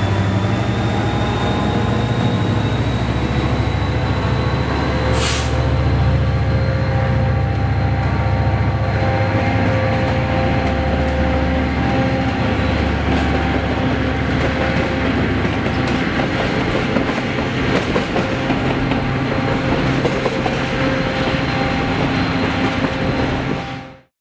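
EMD SD45 locomotive's 20-cylinder diesel running as it passes and draws away, its low rumble fading over the first several seconds. Vintage passenger cars then roll by with steady rail noise, scattered wheel clicks and a thin, steady wheel squeal. The sound cuts off suddenly near the end.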